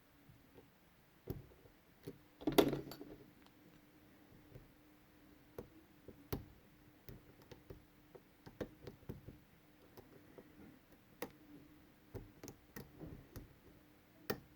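Light, irregular metallic clicks and ticks of lock picks working the pins of a Medeco Biaxial 51S rim cylinder, with a louder rattling cluster about two and a half seconds in.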